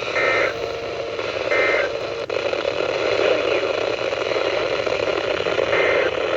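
Emergency Alert System end-of-message data bursts on a NOAA Weather Radio receiver: two short tone bursts about a second and a half apart, with a fainter one near the end, over steady radio static. The bursts mark the end of the required weekly test.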